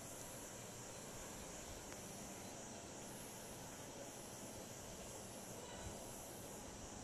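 Faint steady background hiss, room tone with no distinct sound, and one soft low thump about six seconds in.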